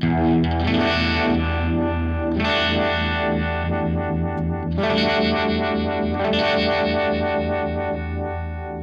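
Distorted electric guitar played through a Fractal Audio amp modeler with a phaser effect switched in: chords struck about four times and left to ring.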